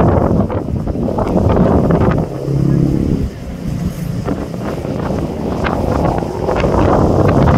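Wind buffeting the microphone over the rush of churning sea water as a pilot boat runs alongside a cruise ship's hull. The noise comes in gusts and eases for a moment about two and a half seconds in.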